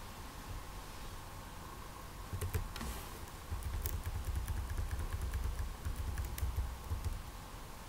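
Computer keyboard keystrokes: scattered clicks, a quick cluster of them about halfway through, with low dull thuds through the middle, over a steady faint electrical hum.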